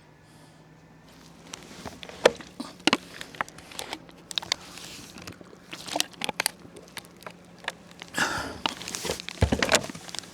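Kayak paddling: irregular sharp knocks and clicks from the paddle and hull, with a splash of water from a paddle stroke near the end.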